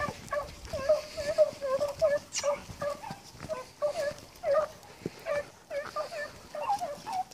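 Hounds baying in a quick, continuous run of short yelping calls, the cry of a pack giving tongue as it runs a rabbit's trail.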